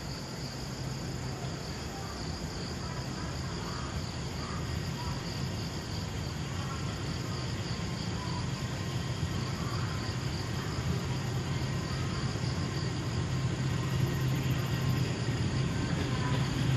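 Kurobe Gorge Railway train, an electric locomotive hauling trolley cars, approaching with a low rumble that grows steadily louder. Insects buzz steadily at a high pitch behind it.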